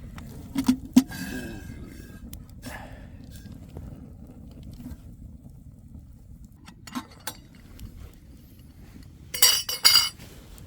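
Metal camp cookware being handled: a couple of sharp knocks about a second in and a few lighter clinks, then a loud burst of ringing clanks near the end as pot and cup knock together.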